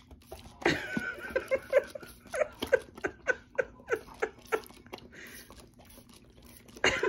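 Hand-held spray bottle squirting water at a Bernese Mountain Dog, which snaps and chomps at the spray in a quick run of short clicks and gulps. A person giggles in short bursts alongside.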